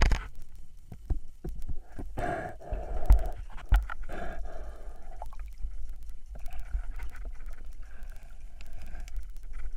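Underwater sound picked up by a diver's camera in a murky river: scattered clicks and a couple of knocks over a steady low rumble, with several noisy spells of about a second each, most likely water and bubbles moving past the camera housing as the diver swims.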